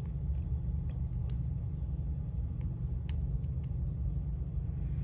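Steady low background hum with a few faint, light clicks of tweezers against small phone parts.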